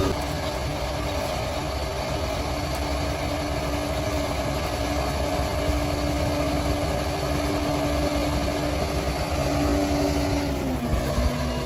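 Bulldozer diesel engine running steadily. About ten seconds in, its note drops in pitch briefly and then climbs back up.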